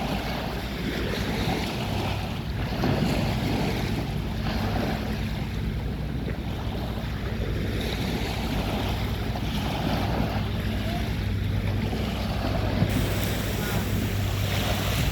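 Waves washing onto a sandy beach in slow, repeated swells, with wind buffeting the microphone and a steady low drone underneath.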